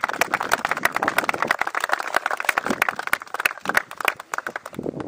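Small crowd applauding: many hands clapping in quick, dense, irregular claps that thin out a little near the end.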